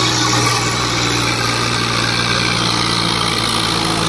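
Tractor diesel engine running steadily at a constant pitch, hauling a loaded straw trolley up a slope.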